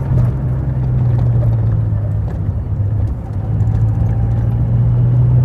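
Engine of a moving vehicle, heard from inside the cab with road noise, droning steadily; its pitch sags a little in the middle and rises again near the end.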